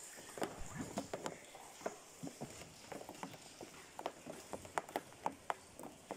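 Irregular sharp clicks and taps, a few a second and uneven in strength, over a faint steady hiss.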